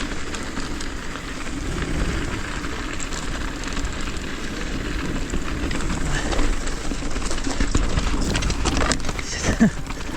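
Mountain bike rolling down a dirt singletrack: a steady crunch and rattle of the tyres over dirt and gravel, with a low rumble of wind on the microphone.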